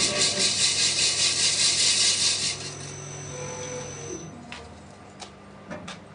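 A CNC machine's cutting tool skimming a metal wheel or brake surface: a steady cutting hiss that stops abruptly about two and a half seconds in, as the pass ends. The machine's hum then fades, with a few light clicks near the end.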